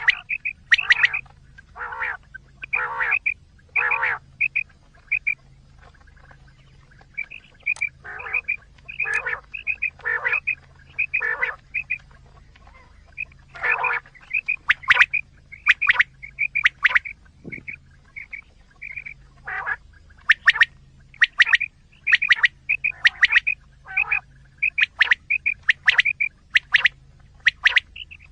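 Quail calling over and over: quick groups of short, high notes mixed with harsher, lower calls about once a second. It is a lure call of the kind played to draw quail in for hunting. A faint low hum pulses on and off underneath.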